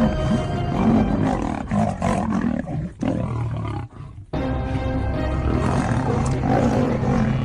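Big cats roaring over steady background music; the sound drops away briefly about four seconds in, then resumes.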